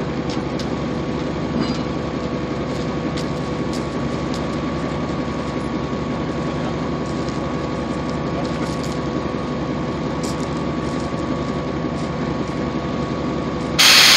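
Lxd2 narrow-gauge diesel locomotive idling steadily, with a low rumble and a steady hum, and scattered light clicks as the coupling to the wagon is worked. Near the end, a sudden loud hiss lasting about a second.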